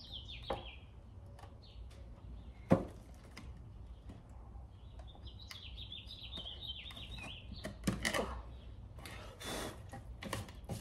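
Quiet handling of small drawer-pull hardware on a painted wooden drawer front: scattered clicks and knocks, the sharpest about three seconds in, and a brief rustle near the end. A bird chirps in quick runs of notes in the background, a few times.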